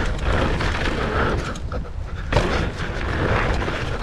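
Mountain bike riding fast down a dirt trail: wind rumbling on the microphone over tyre and chassis rattle, with a sharp knock a little over halfway through.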